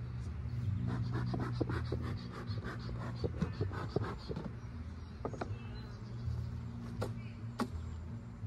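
Beekeeper's bellows smoker being pumped: a quick run of short, breathy puffs, about four or five a second, lasting some three and a half seconds. A few sharp clicks follow, over a low steady hum.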